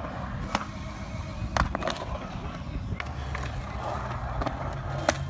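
Skateboard wheels rolling through a concrete bowl: a steady low rumble, with a few sharp clicks about half a second in, around one and a half seconds in, and near the end.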